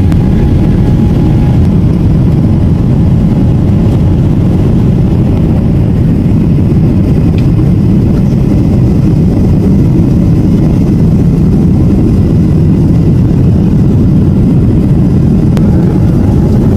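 Steady low rumble of a Boeing 777's jet engines and airflow, heard from inside the passenger cabin.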